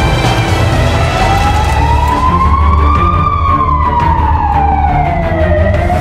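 A siren wailing: one slow tone that rises for about three seconds, then falls and starts to rise again near the end. It sits over music with a steady bass line.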